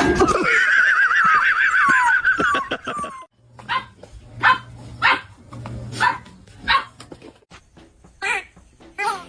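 A dog gives a long, high, wavering cry for about three seconds, then a run of short sharp barks, about one a second.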